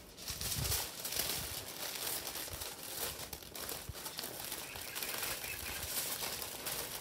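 Aluminium foil crinkling and rustling as it is folded and pressed around a long sandwich roll, a continuous uneven crackle.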